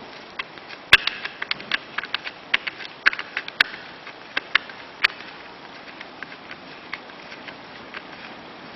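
Sharp clicks and light knocks of small metal parts as a fitting is taken off a shower door handle, coming thick for about the first five seconds, then only now and then.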